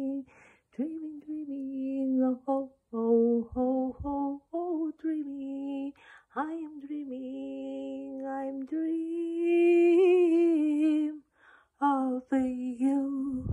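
A woman singing unaccompanied without words: a slow melody of held notes with short breaks between them, and one longer note with vibrato about ten seconds in.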